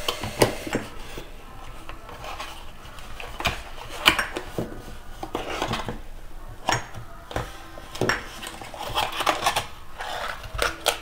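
Glass jars clinking and knocking against each other and the countertop as they are handled in their cardboard packaging: irregular clicks and knocks, the loudest about four seconds in.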